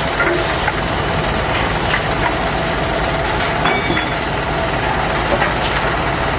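Radio-controlled model crane truck running: steady mechanical rumble with scattered clicks and knocks.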